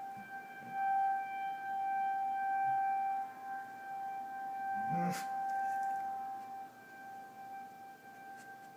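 Tornado warning siren sounding one steady, unchanging tone, faint, swelling slightly and then easing off near the end. There is a brief sharp noise about five seconds in.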